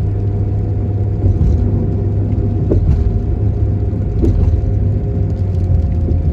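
Steady low road and engine drone heard from inside a moving vehicle's cabin, with a few light knocks or rattles in the middle.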